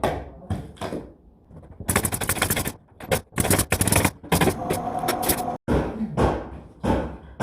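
Pneumatic nail gun (tacker) firing in quick strings of shots, with short pauses between the runs.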